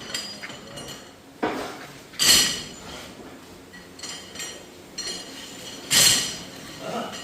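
Steel parts striking steel in a metalworking shop: a few sharp metal clanks at irregular intervals, each leaving a ringing tail.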